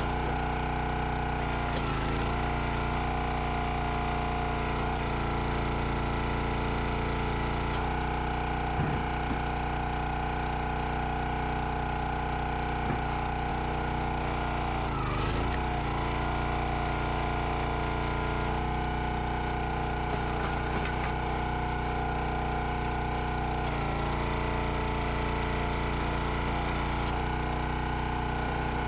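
Small gas engine of a 25-ton log splitter running steadily while its hydraulic wedge splits firewood rounds. The wood cracks and splinters sharply a few times, and about 15 seconds in the engine note dips briefly under load.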